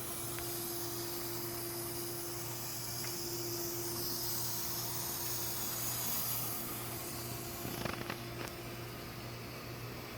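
Steady rushing hiss of water blasted from a hose into a repaired steel gas tank during a leak test. It eases off about seven seconds in, followed by a few sharp knocks.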